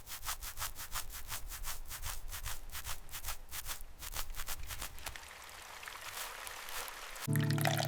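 Fast, even rubbing or scrubbing strokes, about five a second, giving way to a softer steady hiss, with music starting near the end.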